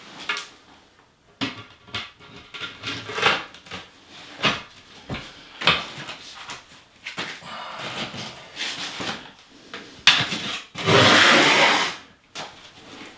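Irregular scrapes and knocks of tile setting as a porcelain tile is handled and pressed into thinset, then about a second of scraping near the end as a trowel spreads thinset on the wall.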